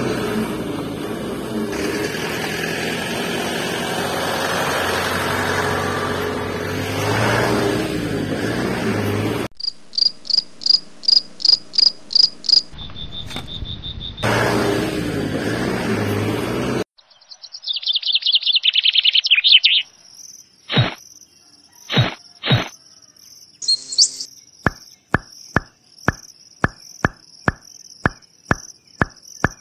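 A vehicle engine running for the first nine seconds or so and again briefly after a short gap. Between and after the engine come high insect and bird sounds: a fast run of chirps, a short steady whistle, a quick trill of falling chirps, then evenly spaced cricket-like chirps with sharp clicks, about two a second near the end.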